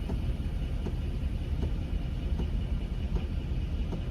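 Car engine idling, heard as a steady low rumble from inside the cabin.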